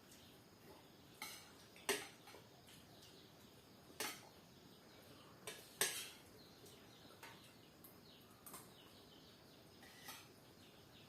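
Cutlery clinking against a plate during a meal: a handful of sharp clinks, the loudest about two and six seconds in, with softer taps between.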